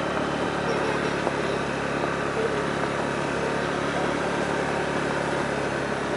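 Motorbike engine running steadily while riding along.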